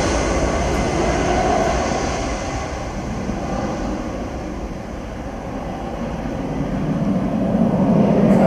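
Airbus A320-216's CFM56 jet engines at takeoff thrust as the airliner lifts off and climbs away: a steady jet roar that eases in the middle and grows louder again near the end.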